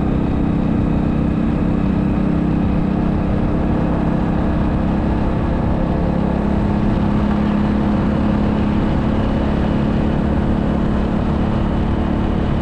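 Motorcycle engine running at a steady pitch while cruising at constant speed, with no gear changes or revving.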